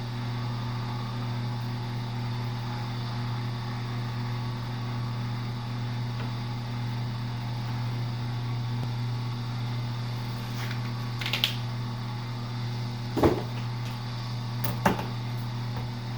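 Electric wire stripper's motor running with a steady low hum, with a few short knocks or clicks in the second half.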